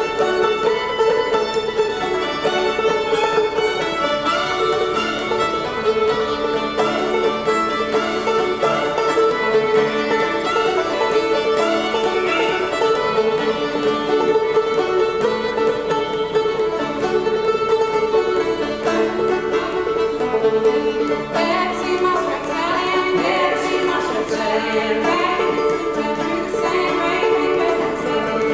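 Old-time tune played live on fiddle and clawhammer banjo, the fiddle bowing a driving melody over the banjo's picked rhythm.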